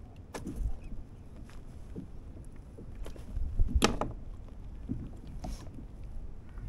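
Water lapping against a kayak's hull, a low steady wash, with scattered clicks and rustles as a freshly caught mackerel is handled. A single sharp knock just under four seconds in is the loudest sound.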